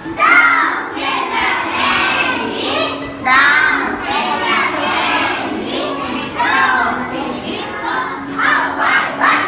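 A class of young preschool children reciting a nursery rhyme together in loud chorus, in short repeated phrases.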